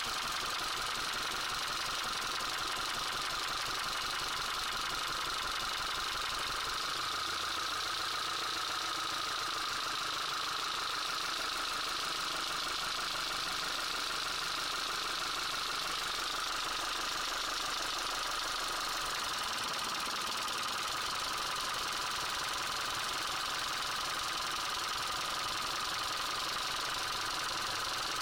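Car engine idling with a knock and rattle that is being traced by cutting out spark plugs one at a time. The engine's low note changes about seven seconds in and changes back at about nineteen seconds.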